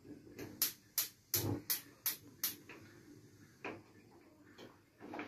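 Gas cooker's electric spark igniter ticking while a control knob is held in to light a burner. It clicks about two or three times a second for the first two and a half seconds, then only a few scattered clicks follow.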